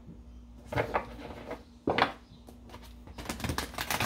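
A deck of oracle cards being shuffled and handled, then tapped together on a table: a handful of short papery flicks and taps spread irregularly.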